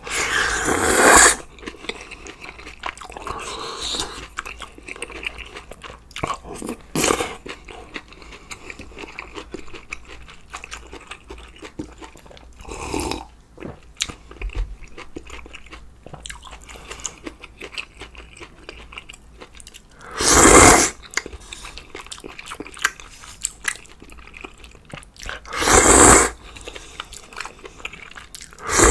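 Close-miked eating of a spicy hot pot with ramen noodles: continuous chewing, broken by about six loud slurps of noodles, each lasting about a second.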